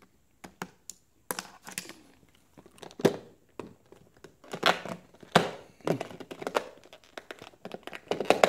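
Hands handling plastic packaging and charger cables: irregular rustles, clicks and small knocks.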